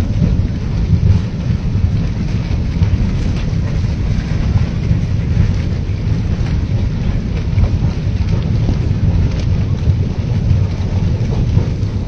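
Debris flow of mud, water and rocks surging down a channel: a loud, steady low rumble with a rushing hiss above it.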